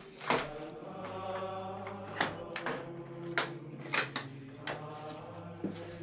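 Slow music of long-held chords that shift every second or two. About eight sharp knocks are spread through it.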